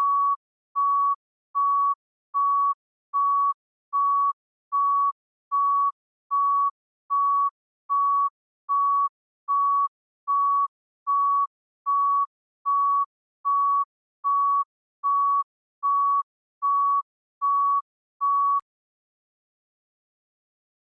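Heart monitor beeping: a single high steady tone repeating evenly, about once every 0.8 seconds (around 75 beats a minute). The beeps stop with a faint click a few seconds before the end.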